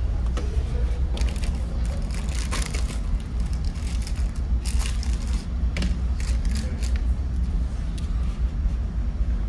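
A plastic sandwich wrapper crinkling and crackling in fits as it is torn open and pulled off, from about a second in until near the end. Underneath is the ship's steady low engine hum.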